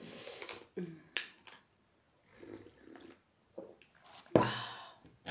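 Close-up eater's mouth sounds after a meal: breaths out and a few sharp lip or tongue clicks, with a louder breathy exhale about four seconds in.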